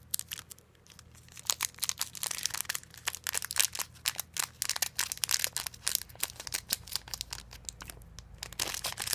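Foil booster-pack wrapper crinkling and crackling as fingers pull and tear at its crimped seal, a pack that is hard to open. A fast run of sharp crackles, with a short lull about a second in.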